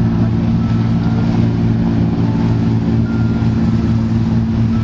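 Lobster boat engine running, a steady low drone at an unchanging pitch.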